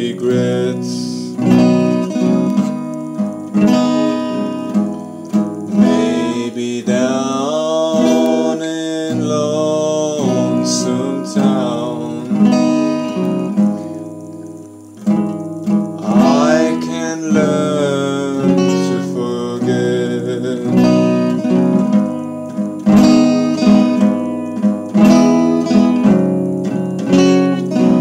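Acoustic guitar strummed and picked in a slow song accompaniment, with a man's singing voice coming in now and then over the chords.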